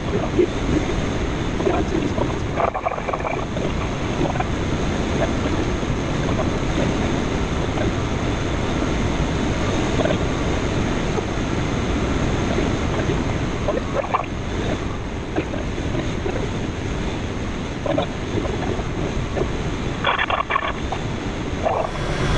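Steady rushing of air around a K13 glider's cockpit canopy in flight, with wind buffeting the microphone.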